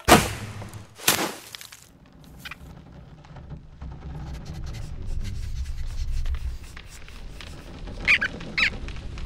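Two sharp whip-like swishes about a second apart as a taut vine bowstring is let go, followed by a low steady rumble. Near the end come two short high squeaks from a cartoon squirrel.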